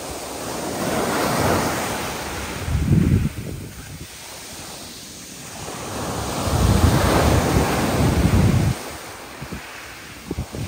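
Rough sea waves surging and washing in, in two big swells: one about a second in and a longer one from about six seconds in. Wind buffets the microphone, adding a low rumble.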